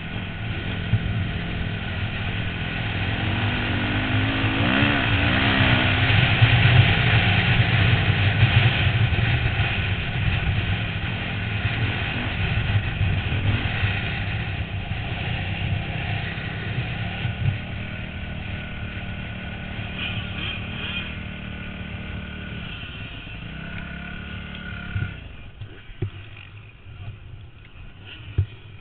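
250cc dirt bike engine heard from a helmet-mounted camera, revving up about five seconds in, then running at easing revs as the bike slows. Near the end the engine sound drops away sharply, leaving a few knocks.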